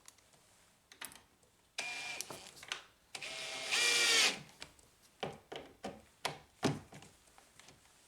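Cordless drill/driver running in two short bursts, the second longer and louder, driving the door's latch strike-plate screws back in. After it come several short knocks.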